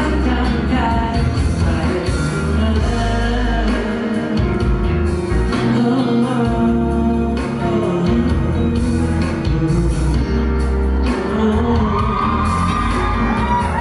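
Live pop-rock song with a male lead singer over a full band, heard through the hall's sound system, with high shouts from the audience rising near the end.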